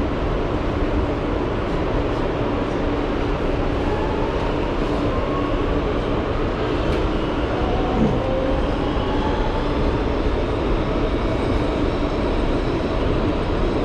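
New York City subway car running, heard from inside: a steady rumble of wheels on track and running gear, with faint whines that slide up and down in pitch and a light knock about eight seconds in.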